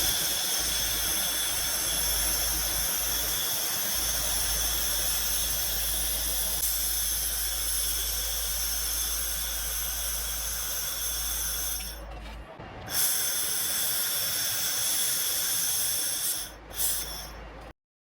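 A 1500 W handheld fiber laser welding machine running: a steady hiss over a low hum, dropping away briefly about twelve seconds in and again near the end.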